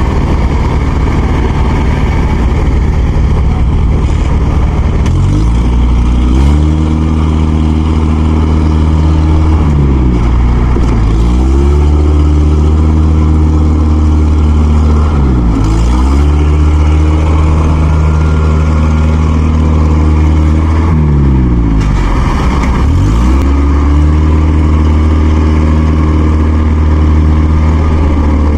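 Diesel engine of farm machinery revved up hard and held under load, dropping back briefly and climbing again about four times. It is straining to pull a rice harvester that is stuck in mud.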